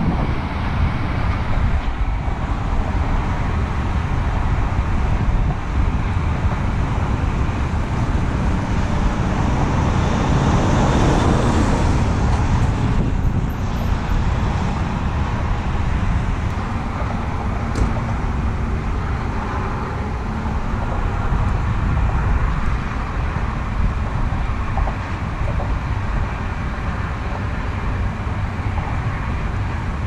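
Steady wind buffeting the camera microphone, a continuous low rumbling roar that swells briefly about ten seconds in.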